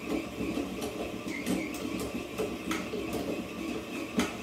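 Stand mixer motor running at a raised speed with its dough hook kneading pizza dough, the dough ball slapping and clicking against the sides of the steel bowl at irregular intervals, with a louder slap near the end. The slapping means the dough is fully kneaded and ready.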